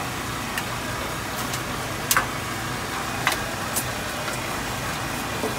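Metal spatulas clinking against a flat-top griddle, a few sharp clinks with the loudest pair about two seconds in and more after three seconds, over a steady hum and hiss.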